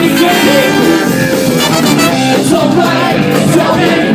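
Live ska band playing loud, with a trumpet and a singer over electric guitar and drums.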